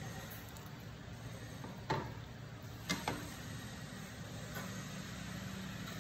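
Two sharp knocks of a kitchen utensil against cookware, about two and three seconds in, the second doubled, over a steady low rumble.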